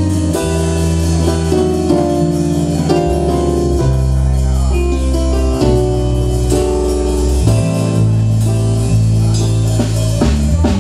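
Live reggae band playing a song's instrumental intro, with a deep sustained bass line, drums and guitar.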